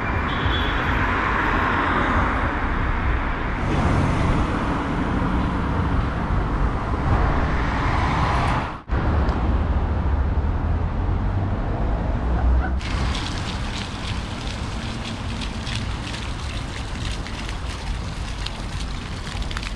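Road traffic noise: a steady rumble of passing cars and vehicles. The sound drops out briefly about nine seconds in, and from about thirteen seconds on it turns hissier with a light crackle.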